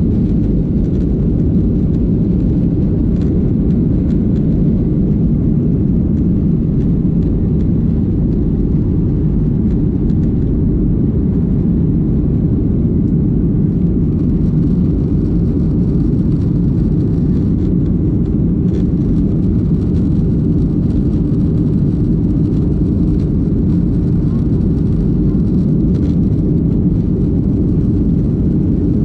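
Steady low rumble of a Boeing 737-800's CFM56-7B jet engines and airflow, heard from inside the passenger cabin.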